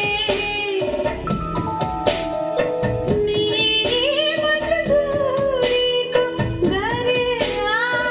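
A song with a singing voice and instrumental backing, played through Altec 604-8G coaxial studio monitor speakers driven by a single-ended tube integrated amplifier; about a second in, an instrument steps down through a run of held notes beneath the voice.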